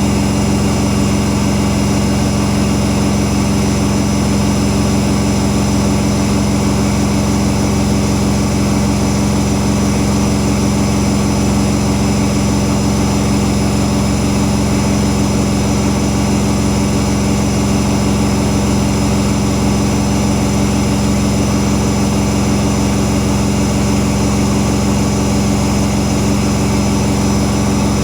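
Whirlpool Indiana 1400 washing machine in its full-speed spin at 1400 rpm: a loud, steady motor and drum hum that holds one pitch throughout.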